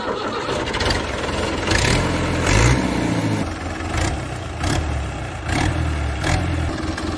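New Holland Dabang 85 tractor's diesel engine running steadily, driving a belt-powered wheat thresher. A brief rush of noise recurs about once a second over the engine.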